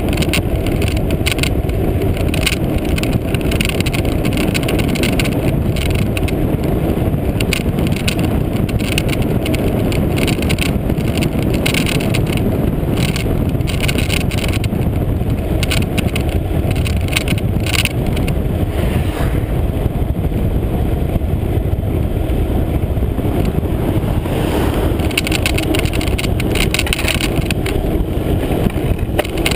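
Wind buffeting the microphone of a camera on a moving bicycle: a loud, steady rumble broken by frequent crackling gusts.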